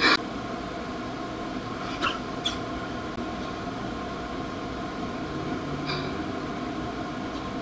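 Quiet room tone: a steady faint hum with a few small clicks or squeaks, about two and a half seconds in and again about six seconds in.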